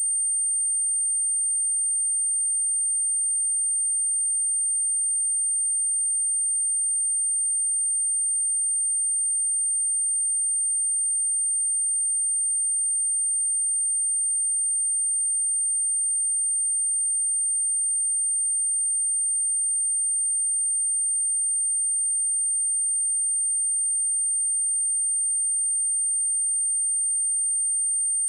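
A single steady, very high-pitched pure tone, unchanging in pitch and loudness.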